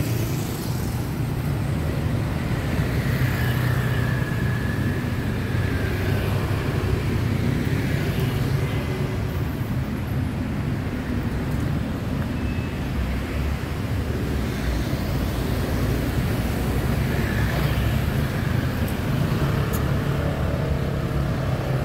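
City road traffic: cars and motorcycles passing on a multi-lane street, a steady low rumble that swells and eases as vehicles go by.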